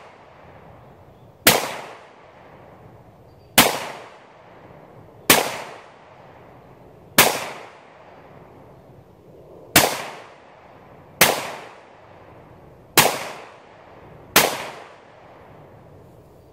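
Eight gunshots fired at an uneven pace, one every one and a half to two and a half seconds. Each is a sharp crack with a short ringing tail.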